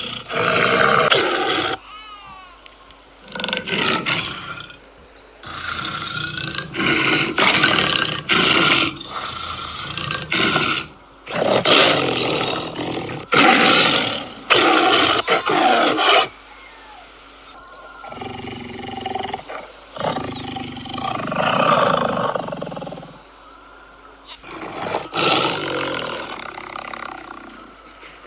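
Tiger roaring again and again, a series of loud roars a second or two each, with softer calls in the second half.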